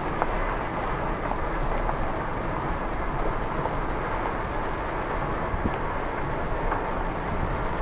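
Steady tyre and wind noise from a vehicle rolling slowly along a gravel road.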